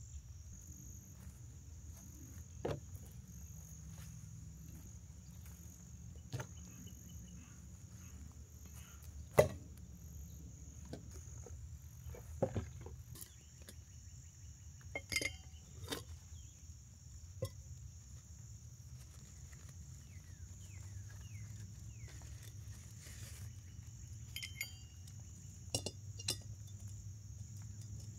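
Steady high-pitched insect chorus, crickets or katydids, with scattered sharp clicks and knocks of something being handled, the loudest about nine seconds in.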